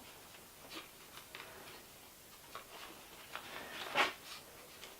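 Faint, scattered small clicks and taps of hands working the plastic recoil starter of a handheld leaf blower while pushing a new pull cord through it, with one louder click about four seconds in.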